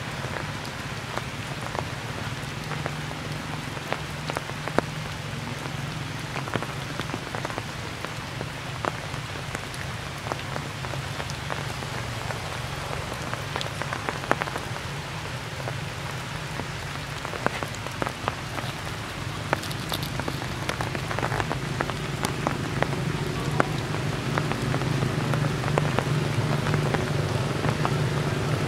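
Steady rain falling, with many sharp ticks of single drops over an even hiss and a steady low hum beneath; the rain grows a little heavier over the last several seconds.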